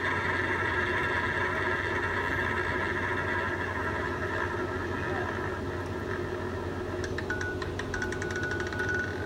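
Electronic roulette terminal's wheel-spin sound effect from its speaker: a steady whirring ball-rolling tone for about seven seconds, then a run of quick clicks as the virtual ball settles into a pocket, stopping just before the end.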